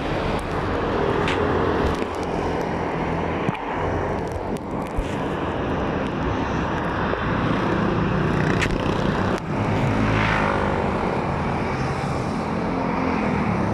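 Steady motor-vehicle engine and traffic noise, with a few brief knocks.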